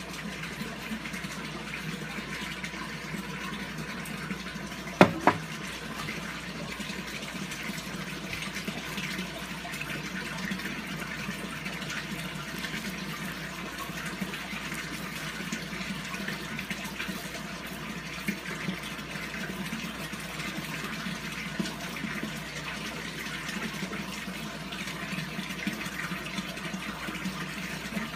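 Steady sound of running water, with two sharp knocks close together about five seconds in.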